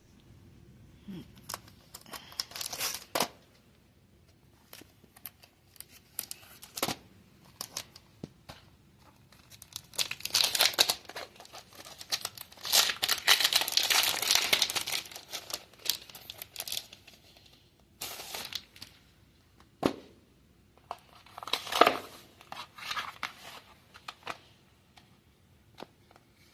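Packaging being handled and opened: plastic and paper crinkling and tearing in irregular bursts, with sharp clicks and a longer stretch of continuous rustling near the middle.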